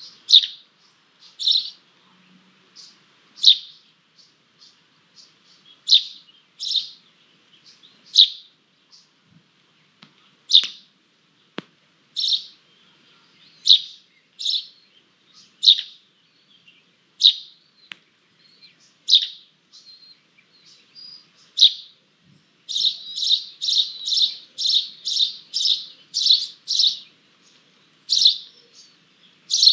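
Bird chirping: short, high calls that slide downward, about one a second, then a quick run of about a dozen in a row in the last third.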